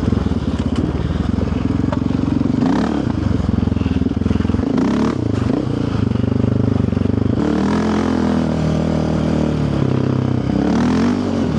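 Yamaha Raptor 700R quad's single-cylinder four-stroke engine running under way, its pitch rising and falling with the throttle, with some scattered clatter.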